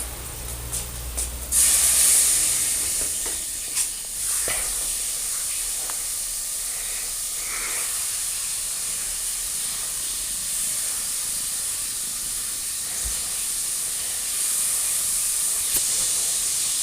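A steady high hiss starting suddenly about a second and a half in, with a few faint clicks over it.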